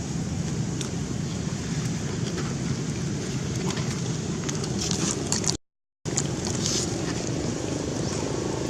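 Steady low rumbling background noise with faint high clicks and chirps, broken by a brief dropout to silence just over halfway through.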